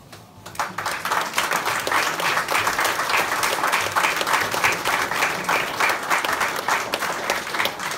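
An audience applauding: a dense patter of many hands clapping that starts about half a second in, swells within a second and then holds steady.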